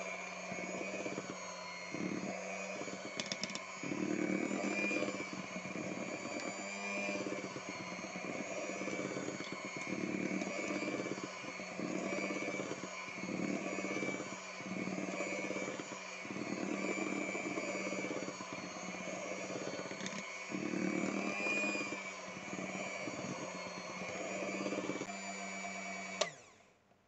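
Electric hand mixer running steadily, its beaters swishing through cake batter in a metal bowl; the motor is switched off shortly before the end.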